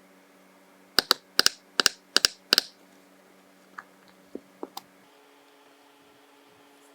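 Five quick pairs of sharp, hard clicks in a row, followed by a few fainter ticks.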